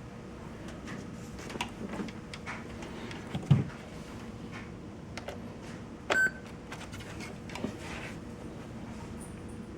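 A portable radio being handled, with scattered clicks and knocks and a heavier thump about three and a half seconds in. A short electronic beep sounds about six seconds in.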